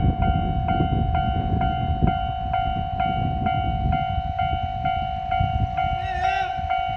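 Japanese railway level-crossing alarm ringing steadily at about two and a half strokes a second, over the low rumble of a train on the line. A brief higher wavering sound comes in about six seconds in.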